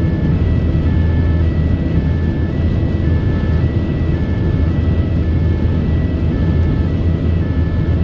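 Ambulance two-tone siren, switching between a high and a low pitch about every half second, heard from inside the cab over the steady low rumble of the ambulance's engine and tyres on the road.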